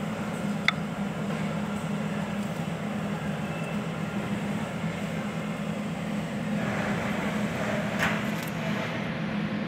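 A steady low machine hum, with a sharp metallic click about a second in and another near the end as the propeller shaft's sleeve coupling is worked onto the splined shaft.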